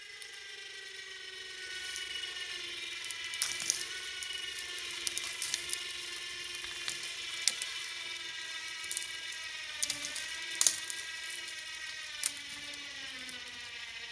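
A cheap winch reeling in line, a steady mechanical gear whine. Its pitch sags slightly about ten seconds in and again near the end as the log takes up the load, with scattered sharp clicks over it.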